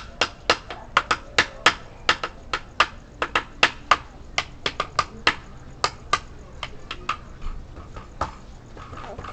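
A rapid series of sharp clicks, about three a second, that thin out and stop near the end.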